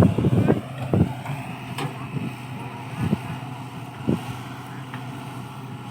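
Excavator's diesel engine running steadily, with dense loud clattering for the first half second and then a few separate sharp knocks.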